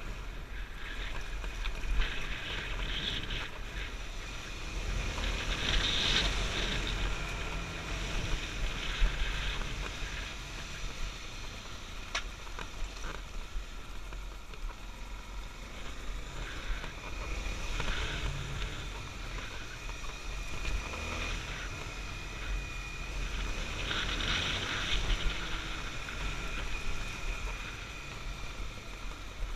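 Honda XR250 Tornado dirt bike riding along, its single-cylinder four-stroke engine running steadily under wind and road noise, swelling in level a couple of times.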